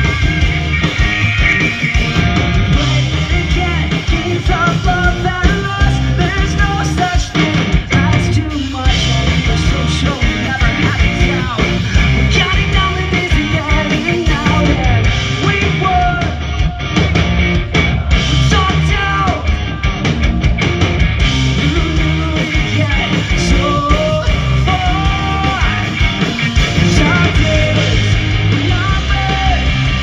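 Live rock band playing loud through a PA: electric guitars, bass and drums, with a sung lead vocal over them.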